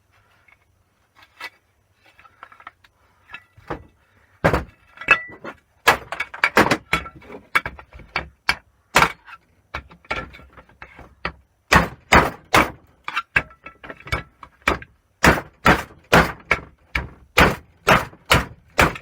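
Hammer striking the metal casing of a boiler's circulating pump motor to knock it apart: a few light clicks, then a long run of sharp blows with a short metallic ring, coming faster toward the end at about two a second.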